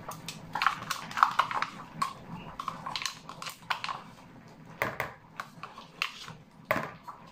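Irregular light clicks and taps as yogurt is spooned from its small pot into cake batter in a plastic mixing bowl with a wire whisk resting in it.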